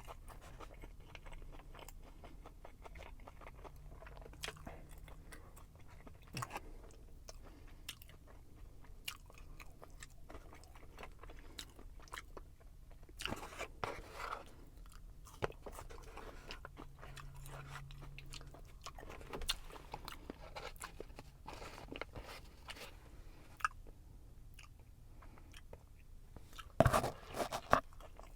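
Close-up chewing and biting of a Big Mac: quiet, scattered wet mouth clicks and smacks, a few louder bites in the middle and near the end.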